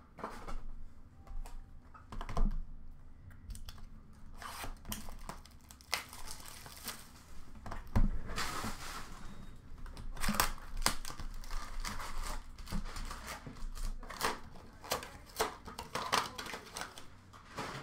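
Upper Deck Ice hockey card packs and cards being handled: foil wrappers tearing and crinkling, with many short sharp clicks as cards and packs are picked up and set down.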